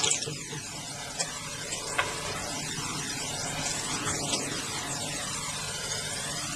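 Steady background hum and hiss with a slowly shifting, whooshing tone, and a couple of faint light clicks about one and two seconds in.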